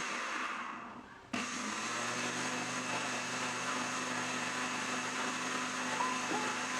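Electric blender blending dates with milk: the motor winds down over the first second or so, then starts again abruptly about a second and a half in and runs with a steady hum.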